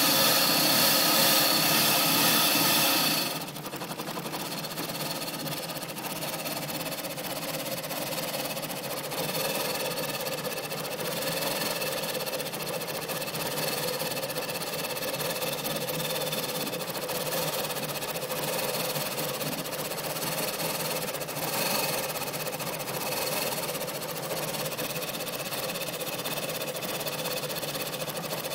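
A 2004 Mazda 6's 2.3-litre four-cylinder engine running at a rough, uneven idle. It is louder at first, drops suddenly about three seconds in, then carries on lower with small surges and dips. This is the rough idle of an engine whose revs keep dropping and which keeps cutting out, a fault the owner has not traced.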